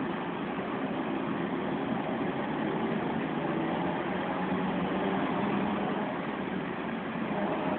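Volvo B10M city bus's mid-mounted six-cylinder diesel and drivetrain running steadily as the bus moves, heard from inside the cabin. The bus's gearbox is worn out, which gives its drive its howling note.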